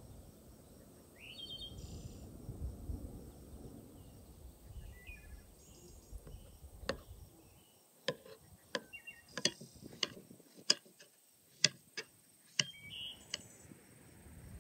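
A kitchen knife slicing a melon on a wooden plate, the blade knocking sharply on the wood about ten times in the second half as each slice is cut through. Short bird chirps sound now and then.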